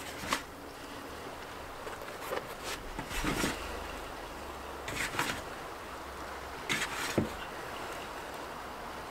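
Sawdust being sprinkled into a glue-coated felt hat and poured off into a plastic bucket: several brief soft rustles and hand-handling sounds over a steady background hiss.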